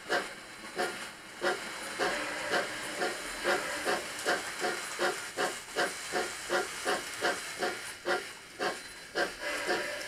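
Steam locomotive exhaust beats from a model railway sound box, a regular hissing chuff that quickens from under two to about three beats a second as the N gauge steam train pulls away.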